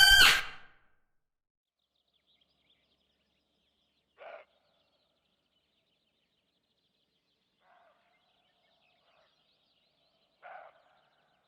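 A loud, pitched animal call that ends within the first half second, then three short, faint animal calls about four, eight and ten and a half seconds in, with near silence between them.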